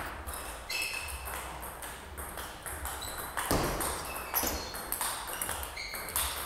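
Plastic table tennis ball striking rackets and the table, a series of sharp, ringing pings about two or three a second.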